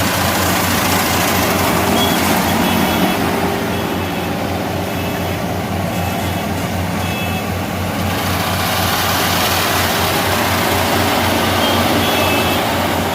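Combine harvester running steadily under load, its engine humming low beneath the broad noise of the cutting and threshing machinery.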